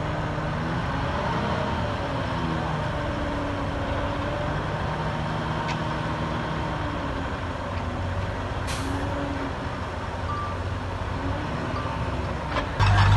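Heavy diesel engine of earthmoving machinery running, its pitch rising and falling with the revs. A short air hiss comes about nine seconds in, and just before the end the engine noise suddenly gets much louder.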